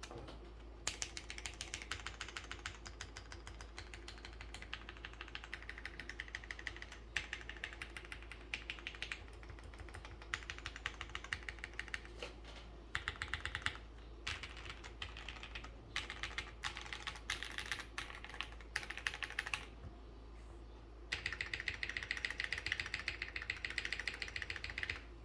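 Typing on a Geon F1-8X gasket-mount mechanical keyboard with lubed and filmed Black Cherry Pie linear switches, a 1 mm aluminium plate, GMK keycaps and no foam. Rapid keystrokes come in runs broken by brief pauses, with the fastest run near the end.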